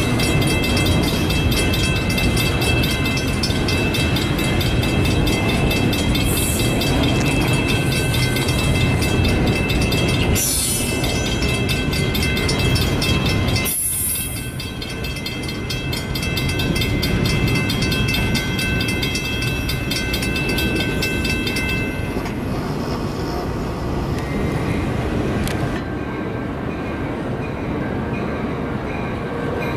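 Double-stack intermodal freight train of container well cars rolling past: a steady rumble and clatter of steel wheels on rail, with a steady high ringing that stops about 22 seconds in. Near the end this gives way to a quieter, different train sound.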